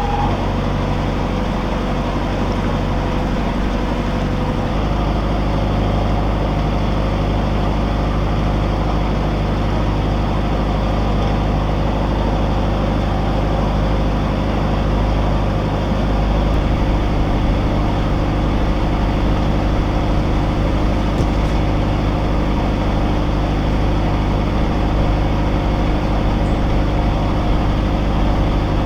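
Narrowboat's diesel engine running steadily while cruising, its note shifting slightly about five seconds in.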